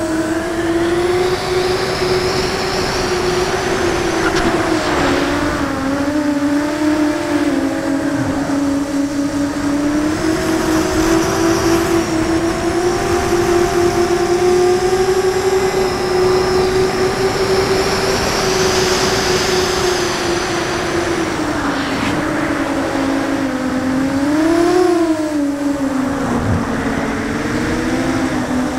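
QAV 250 racing quadcopter's DYS 2300kv brushless motors and propellers whining steadily in flight, heard up close from a camera on the frame. The pitch wavers up and down with the throttle, with a brief rise and fall about 25 seconds in.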